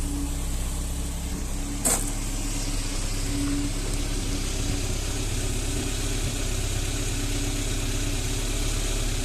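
VAZ 21083's 1.5-litre four-cylinder engine idling steadily, freshly rebuilt with a new connecting-rod bearing after a rod-bearing knock. A single sharp click about two seconds in.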